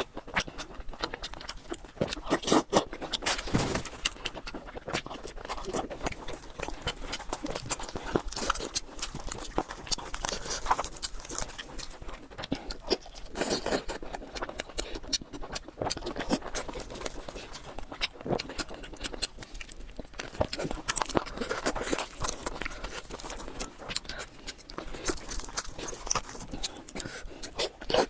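A person eating close to the microphone: irregular chewing with wet mouth clicks and smacks.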